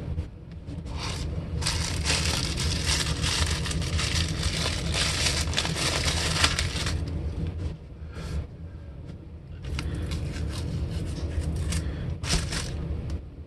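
Masking tape being peeled off a freshly spray-painted guitar body and plastic masking crinkling, heard as rough crackling in two long stretches, the second near the end. A steady low hum runs underneath.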